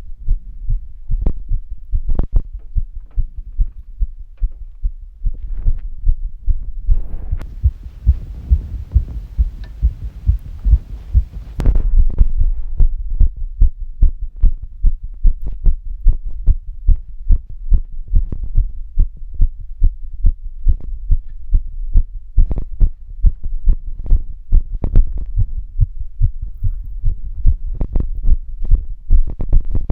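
Human heartbeat recorded close up: a steady, regular run of low thuds, about one and a half beats a second. About a third of the way in, a rustling hiss runs under the beats for several seconds and cuts off with a sharp click, after which the beats come louder.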